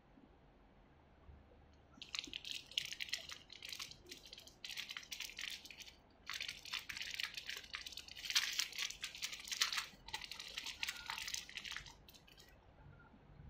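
Small clear plastic bag crinkling and crackling as fingers handle and open it, in irregular bursts with short pauses, starting about two seconds in and stopping shortly before the end.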